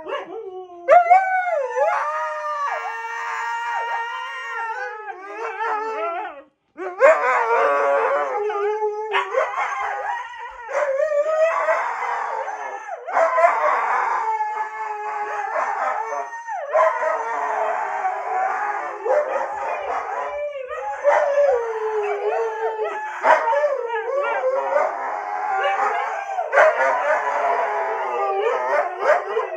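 Siberian husky howling in long, wavering howls that rise and fall in pitch, almost without pause, with one brief break about a quarter of the way through.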